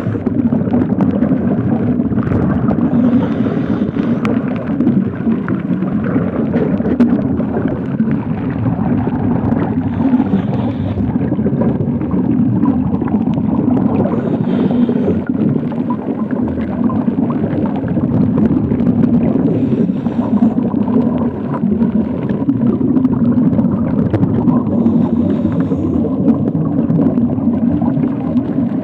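Muffled underwater noise picked up by a camera submerged in the sea: a steady low rush of moving water with faint clicks and crackles, and a few brief higher hisses.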